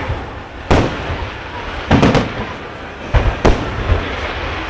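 Fireworks going off: a series of about six sharp bangs at uneven intervals, some in quick pairs, over a steady background rumble.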